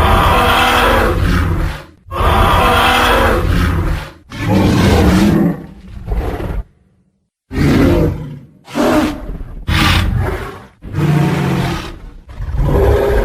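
Tyrannosaurus rex roar sound effects: a run of long, loud, rough roars, each one to two seconds, following one another with short breaks and a brief silence about halfway through.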